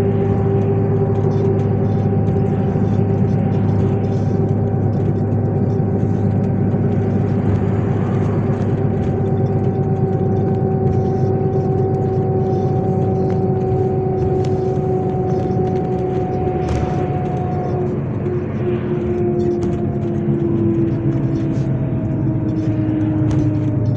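MAZ 103 city bus heard from inside the passenger cabin while under way: steady engine and drivetrain hum with a whine that slowly falls in pitch. The whine drops to a lower tone about three-quarters of the way through.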